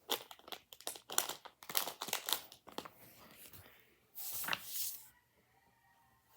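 Small plastic bag of Nanoblock pieces crinkling as it is handled: a run of quick rustles, then a longer, louder crinkle about four seconds in.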